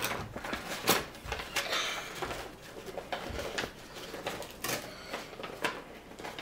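Small plastic toy parts and packaging being handled: irregular clicks, taps and rustling, with a sharper click about a second in.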